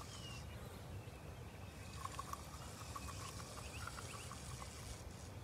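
Faint waterside ambience: small birds calling, with a few short falling whistles at the start and scattered short chirps from about two seconds in, over low background noise.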